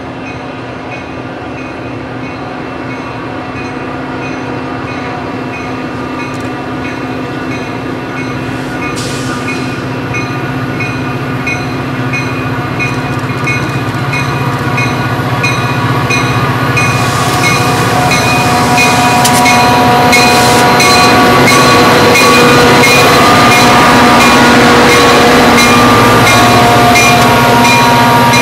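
Metra EMD F40PH diesel locomotive approaching and passing, its engine running steadily and growing louder as it nears. Once the locomotive has gone by, the bilevel coaches roll past with a rumble and a run of clicks from the wheels over the rail joints.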